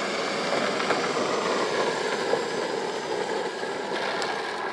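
Power Wheels Lightning McQueen ride-on car upgraded to 18 volts driving on asphalt: its electric drive motors and gearboxes run and its hard plastic wheels roll, making a steady, rough noise.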